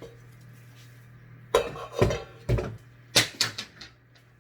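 Spatulas and spoons knocking and scraping against a mixing container while a thick suet mix of grease and grains is stirred, with a cluster of about five sharp clatters in the middle.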